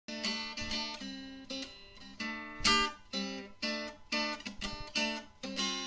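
Intro music of strummed acoustic guitar chords in a steady rhythm, about two strums a second.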